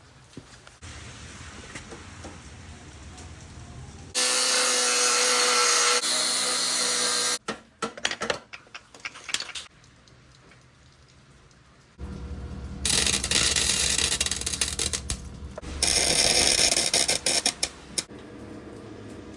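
A series of workshop sounds with abrupt changes between them: power-tool noise in two loud stretches, about 4 to 7 seconds in and again about 13 to 18 seconds in, with clicks and knocks of hand tools on metal between them.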